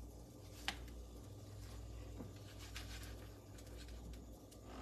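Metal tongs handling quesadillas in a frying pan, quietly: one sharp click under a second in and a few faint taps and scrapes over a steady low hum.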